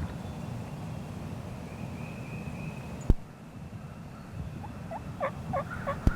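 A wild turkey gobbling: a rapid run of about six short notes over the last second and a half. A sharp click about three seconds in.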